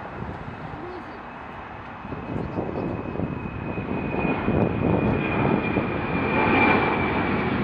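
Jet engines of a UPS Boeing 767 freighter climbing out after takeoff: a rumble that swells from about two seconds in, with a high engine whine that slowly falls in pitch.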